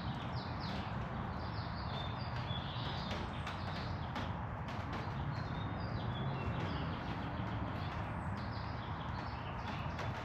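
Small birds chirping again and again over a steady outdoor background hiss, with faint scattered clicks.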